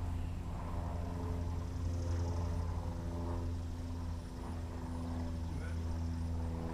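A vehicle engine idling, a steady low hum with a slight dip about four seconds in.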